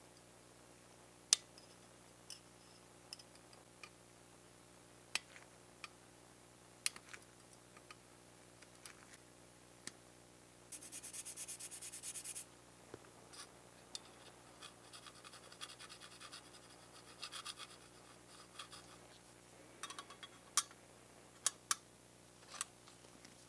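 Steel spatula tool scraping over a small bare metal part: scattered short scrapes and sharp ticks, with a dense rasping scrape lasting about a second and a half near the middle and a longer, softer stretch of scraping after it.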